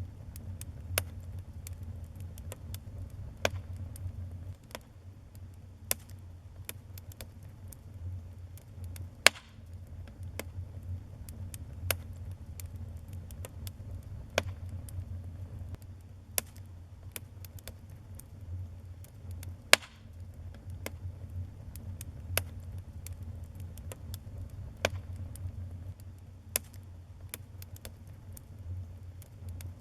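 Wood fire in a fireplace crackling, with sharp irregular pops and snaps over a steady low rumble of the flames.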